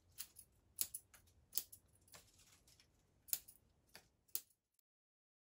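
Small bonsai scissors snipping leaves off a Japanese apricot bonsai during defoliation: a string of short, sharp snips at irregular spacing, about ten in all. The sound cuts off suddenly about four and a half seconds in.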